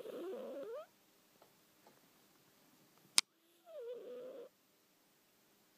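Sleeping domestic cat making two short vocal noises with a wavering, up-and-down pitch, each under a second long, one at the start and one about four seconds in. A sharp click comes about three seconds in.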